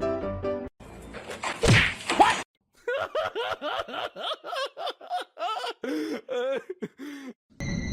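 A sharp whack amid scuffling noise, then a rapid run of about a dozen short, high, rising-and-falling meows from a cat.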